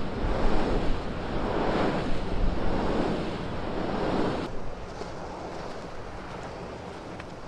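Wind rushing over the microphone in surging gusts. About four and a half seconds in it drops suddenly to a quieter, steady wind hiss, with faint crunching footsteps in snow near the end.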